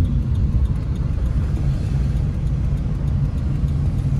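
Steady low rumble of a small car driving, engine and road noise heard from inside the cabin.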